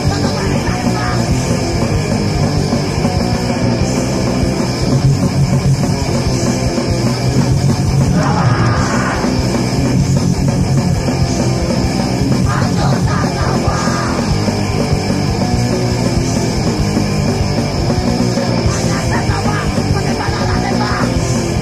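Loud punk rock song from a recording, a full band playing at a steady volume.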